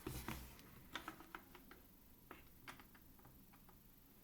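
Faint scattered clicks and taps as a micro USB plug is fumbled into its socket in a wooden box, a few light ticks in the first couple of seconds, then quieter.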